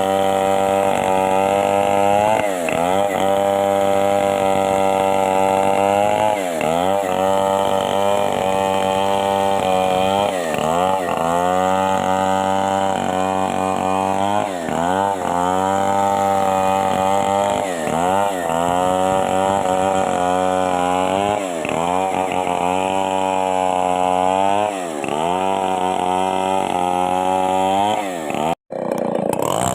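Chainsaw running at full throttle while cutting merbau hardwood, its engine pitch dipping under load and recovering about every two seconds. Near the end the sound cuts out for a moment.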